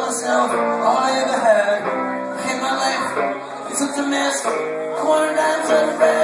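Amplified electric guitar played live: a run of held notes and chords, some of them bending in pitch, filling the room as heard from the audience.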